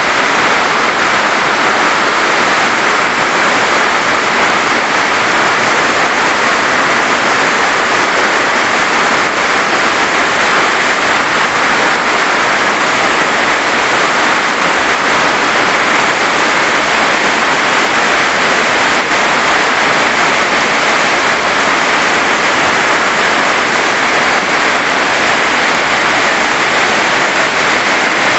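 Waterfall pouring: a loud, unbroken rush of falling water that stays the same throughout.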